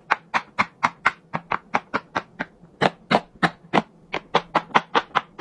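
Silicone pop-it fidget toy bubbles being pressed one after another, a quick, even run of sharp pops about four or five a second.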